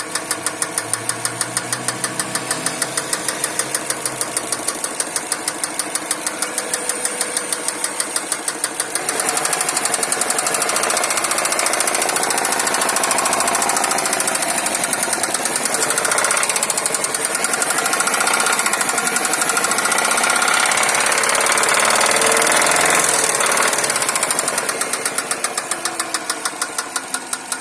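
Subaru Forester's EJ205 turbocharged flat-four engine running with a regular, rhythmic knock. About nine seconds in the engine speeds up and gets louder, the knocks running closer together. Near the end it drops back to idle.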